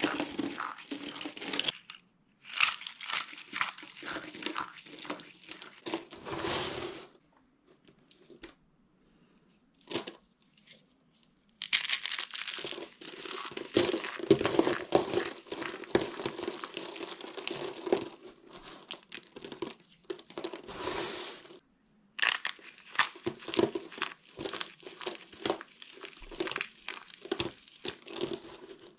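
Dry soap being crushed, crunching and crackling in dense runs of small cracks. There is a pause of about four seconds a third of the way in, with one short crackle, before the crunching resumes.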